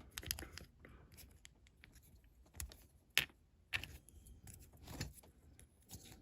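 Scattered small clicks and taps of diecast model car parts being handled and fitted together, with one sharper click about halfway.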